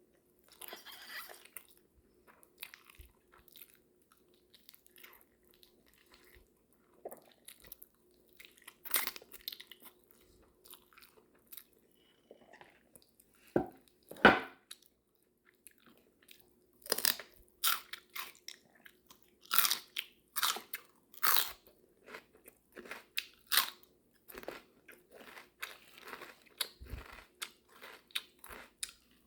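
Close-miked open-mouth chewing of food: wet smacking and crunching in irregular bursts. The loudest bite comes about 14 seconds in, and the chewing gets denser from about 17 seconds on.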